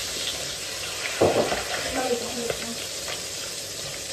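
Khoi fish (climbing perch) frying in hot oil in a wok, a steady sizzle, while a metal spatula scrapes and knocks against the pan as the pieces are turned; the loudest knock comes about a second in.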